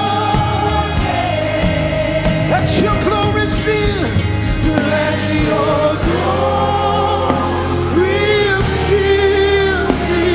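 Live gospel worship music: singers and a choir holding long, wavering notes over a band with sustained bass.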